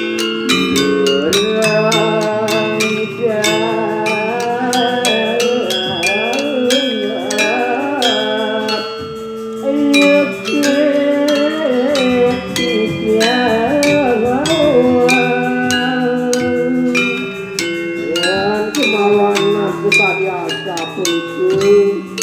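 A pair of Balinese gender wayang, bronze-keyed metallophones, played together with mallets in fast, dense patterns of struck, ringing notes.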